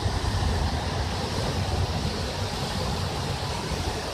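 Steady rumble of traffic and water on a flooded road, with wind buffeting the microphone.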